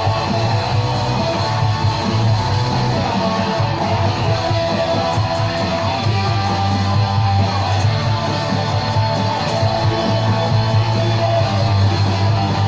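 Music led by guitar, with a strong bass line.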